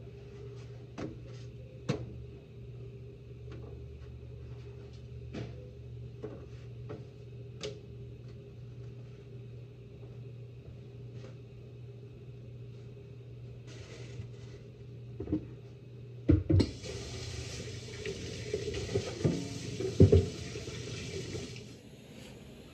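Light scattered clicks and taps of kitchen handling over a steady low hum. About sixteen seconds in, water starts running from a tap for about five seconds and then cuts off, with a couple of knocks while it runs.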